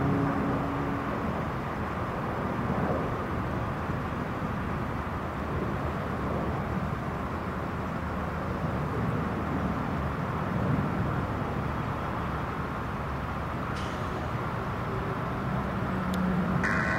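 Jet engines of an Airbus A320 airliner climbing out after takeoff: a steady, even rumble that eases slightly after the first couple of seconds.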